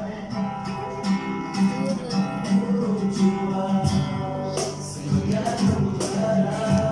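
Live acoustic band: a male voice singing over a strummed acoustic guitar, with a cajon beating time.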